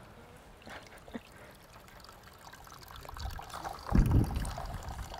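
Water trickling in a thin stream from a rainfall simulator's soil tray into a plastic tub of runoff, getting louder from about three seconds in. A low thump about four seconds in is the loudest sound.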